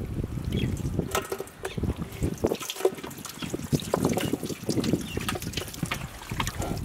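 Wet raw shark-meat pieces tipped from a steel tray into a large metal pan, sliding and dropping with many small, irregular knocks.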